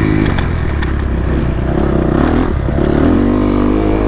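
Kawasaki KX250F four-stroke single-cylinder dirt bike engine under riding load, revving up and down with the throttle. There is a drop in pitch about two and a half seconds in, then it picks up again.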